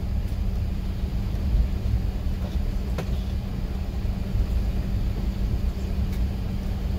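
Steady low rumble and hum inside an Airbus A380's cabin as the airliner rolls along the runway after touchdown, with a single sharp click about three seconds in.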